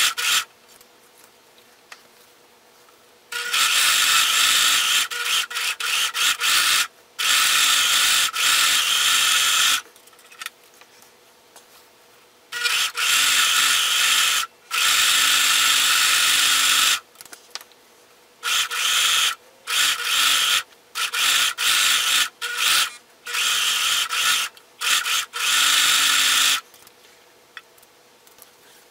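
Singer ProFinish serger (overlocker) running in repeated bursts, a few seconds each at first and then shorter, stopping and starting as it overlocks the raw edges of fabric panels to keep them from fraying.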